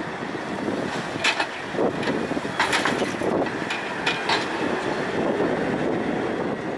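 Terex TLB890 backhoe loader working while it loads gravel onto a truck: a steady engine noise with a run of sharp knocks and rattles about one to four and a half seconds in.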